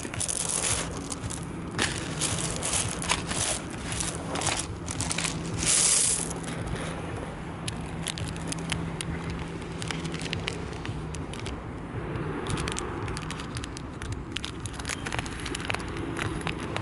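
Footsteps crunching and scraping on loose shingle pebbles, with sharp clicks of stones knocking together. The crunching is densest in the first half, with the loudest crunch about six seconds in.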